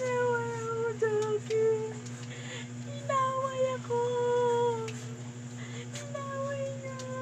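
A dog whining in distress: several long, high-pitched notes, each sliding slightly downward. A steady low hum runs underneath.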